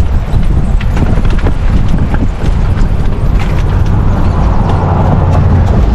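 Bicycle rattling and clicking over a rough, unpaved trail, with heavy wind rumble on the microphone.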